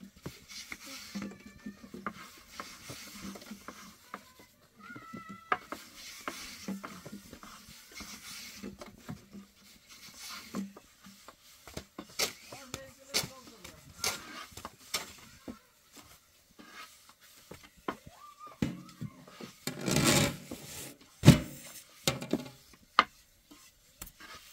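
Long thin wooden rolling pins rolling out flatbread dough on round wooden boards: repeated rubbing of the pins over the dough, with light knocks and taps of wood on wood. A louder scuffing thump and a sharp knock come near the end.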